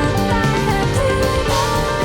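Instrumental band music with drums under a melodic lead line whose notes slide in pitch.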